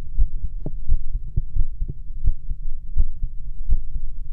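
Human heartbeat picked up through a 3D-printed acoustic stethoscope with a loose plastic-cup diaphragm pressed to the chest: about six lub-dub double thumps at an even pace over a steady low rumble, ending in a sharp click.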